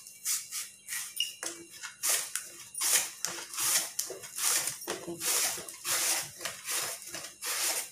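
Raw plantain being shaved on a handheld vegetable slicer: repeated rasping strokes, about two a second, as slices fall onto a steel chopping board.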